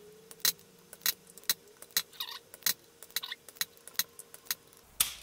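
Irregular sharp metallic clicks and taps, about three a second, as a heated desoldering iron is worked from pin to pin over the solder joints of a circuit board, drawing solder off a chip's pins. A faint steady hum sits under the clicks.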